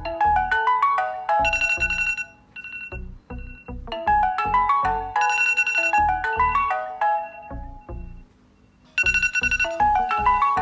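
Tablet ringtone: a melody of quick, bright notes that plays through, pauses briefly and starts over, looping about every four to five seconds.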